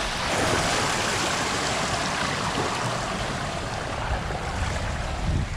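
Water rushing down an open fibreglass water slide as a rider slides down it, a steady splashing rush. A low, uneven rumble builds in the last second or so.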